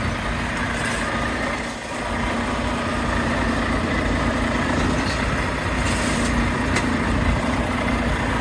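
Iveco Stralis truck engine idling steadily with a constant low hum.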